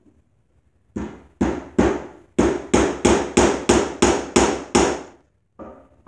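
Hammer driving a nail into a wooden side rail: eleven sharp strikes, three and then, after a short pause, a steady run of eight at about three a second.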